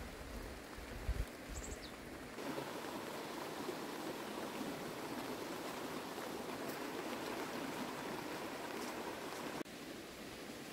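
Steady outdoor rushing noise, with a low wind rumble on the microphone for the first two seconds; the sound changes abruptly twice, at the cuts.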